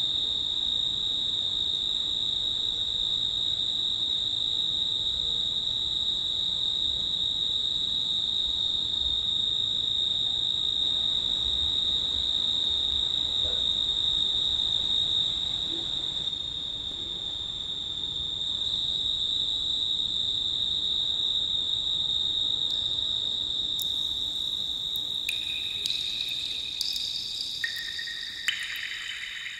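Crickets trilling: one steady, unbroken high-pitched trill. Near the end, several other ringing high notes come in one after another.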